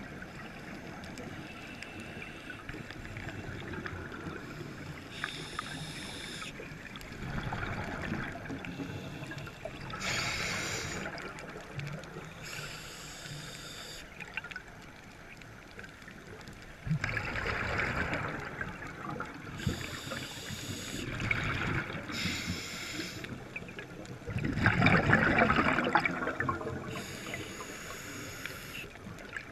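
A scuba diver's regulator breathing, recorded underwater. Hissing inhalations every few seconds alternate with louder bubbling exhalations, the loudest exhalation coming near the end.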